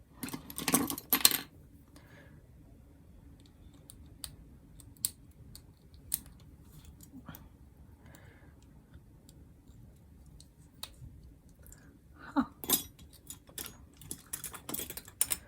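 Small hard plastic clicks and clatter of false nail tips being picked through and handled, in a busy flurry at the start and again near the end, with scattered single clicks between.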